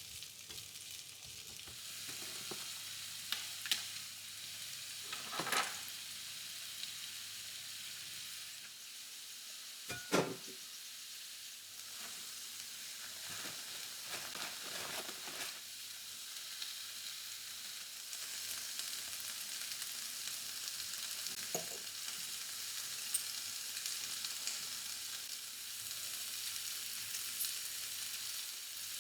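Food sizzling in a hot frying pan, a steady hiss, while it is stirred, with a utensil scraping and knocking against the pan now and then; the sharpest knock comes about ten seconds in.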